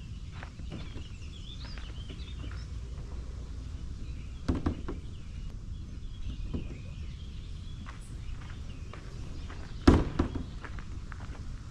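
Outdoor ambience: a steady low wind rumble with small birds chirping and scattered light clicks, and two louder thumps, about four and a half and ten seconds in.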